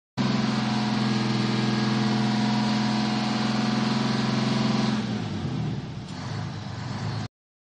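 ATV engine running at a steady pitch. About five seconds in it drops in level and wavers, and it cuts off abruptly near the end.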